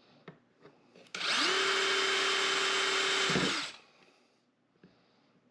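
Drill press spinning up about a second in, running steadily for about two and a half seconds with a small twist bit boring a screw hole through a plastic cover, then winding down.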